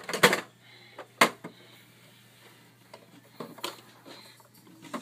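Hard plastic toy pieces knocking and clattering as a toddler bangs them: a loud clatter just after the start, a sharp knock about a second in, and lighter knocks at about three and a half seconds.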